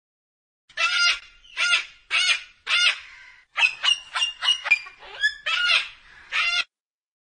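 A yellow-crested white cockatoo calling: about a dozen short squawks over some six seconds, coming fastest in a quick run near the middle.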